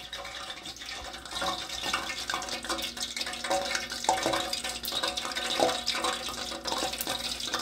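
Cooking oil in a steel pot on a gas burner crackling with light, irregular pops. The oil is not yet hot enough for frying the battered tofu.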